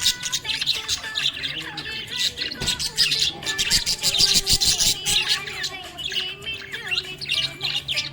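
Budgerigar chirping and warbling in a fast, unbroken stream of short high notes and squawks.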